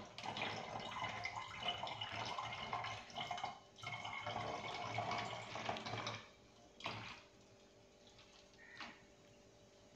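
Carbonated soda water pouring from one plastic bottle into another that holds orange squash syrup. It comes in two long pours with a short break about three and a half seconds in, then a brief splash near seven seconds.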